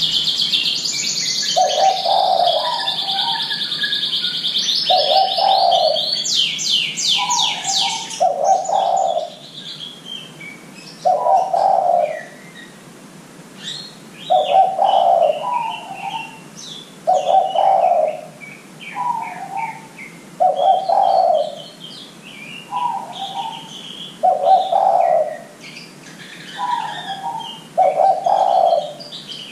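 Spotted dove cooing in a repeated two-part phrase, a low coo followed by a short higher note, about every three seconds. For the first eight seconds a small songbird chirps loudly over it and ends in a fast trill; fainter chirps are scattered after that.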